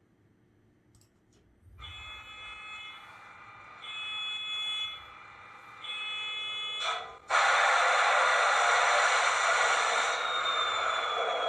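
Model locomotive sound decoder playing recorded diesel locomotive engine sound through a small speaker. After a short silence the engine sound comes in, steps up and down in loudness several times, then jumps to a much louder, fuller running sound about seven seconds in.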